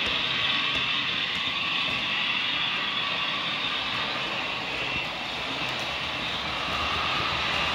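H0-scale model Talgo train running along the layout track: a steady, continuous rolling noise of the small wheels on the rails and the locomotive's electric motor.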